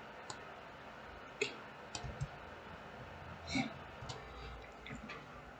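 Computer mouse clicking a few times at irregular intervals, faint clicks over quiet room hiss.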